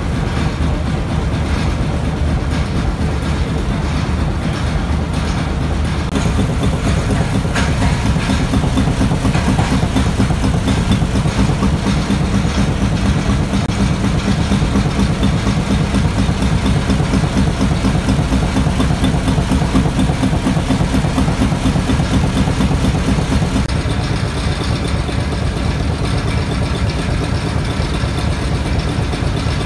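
Large antique stationary engines with heavy flywheels running steadily. The low engine sound grows stronger about six seconds in and eases back near the end.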